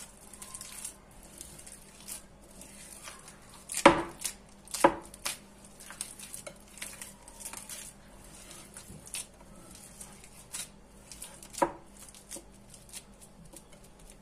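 Gloved hand kneading a sticky date and walnut mixture in a glass bowl: soft squishing and rustling, broken by a few sharp knocks against the glass. The loudest knocks come about four seconds in, just after, and again near twelve seconds.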